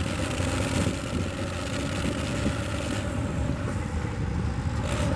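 Farmall 460 tractor's six-cylinder engine running steadily under heavy load while dragging a tractor-pull weight-transfer sled.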